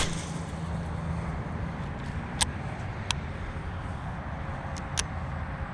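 Steady low outdoor rumble with four short sharp clicks spread through it.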